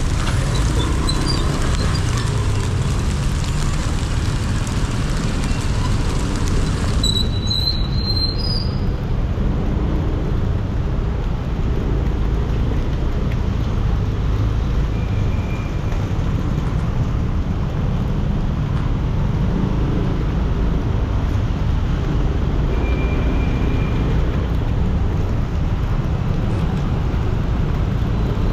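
Road traffic heard from a motorbike riding through heavy city traffic in the rain: a steady low rumble of engines and road noise. A high hiss over it drops away suddenly about seven seconds in, and two faint, brief high tones come later.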